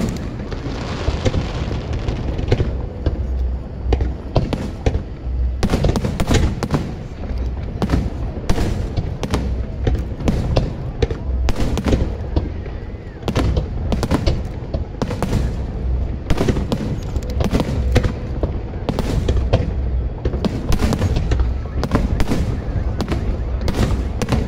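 Aerial fireworks display: a continuous barrage of shell bursts, many sharp bangs a second over a steady low rumble.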